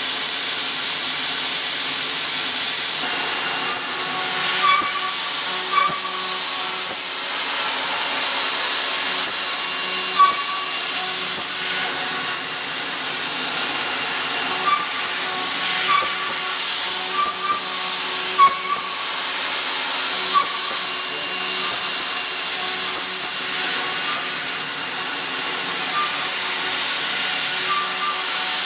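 Kitamura Mycenter HX250G horizontal machining center running its spindle at high speed with an end mill machining a metal block: a steady high hiss, broken by clusters of short, high squeals as the cutter bites into the metal, recurring every few seconds from about four seconds in.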